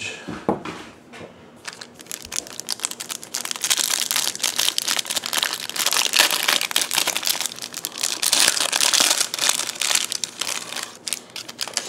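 Packaging from an opened trading card box being crumpled and crinkled by hand, a dense crackle that starts about two seconds in and goes on until just before the end.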